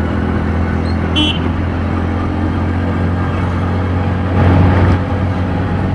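100cc motorcycle engine running steadily while riding, with wind and road noise. A short high-pitched beep sounds about a second in, and the engine and traffic noise swell briefly near the end.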